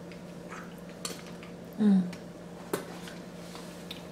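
Eating king crab legs: a few sharp clicks of shell and dishes, and just before two seconds in a short falling "mm" from the eater, over a steady low hum.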